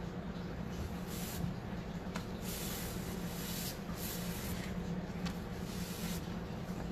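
Cloth rag rubbed back and forth over a bare wooden tabletop, working wet chalk paint into the grain as a stain: a run of swishing strokes, uneven in length.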